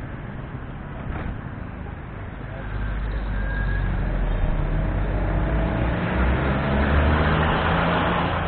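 Road traffic with a motor vehicle passing close: its engine rumble and tyre noise swell from about three seconds in, peak near the end, then begin to fade.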